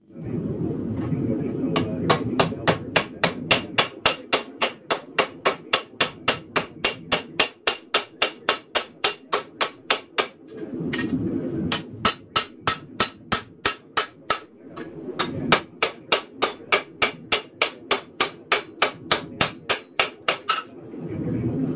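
Hand hammer striking red-hot 1084 high-carbon steel on an anvil to forge a knife blade, sharp ringing blows at about three to four a second in runs. Between the runs there are short pauses filled with a steady rushing noise.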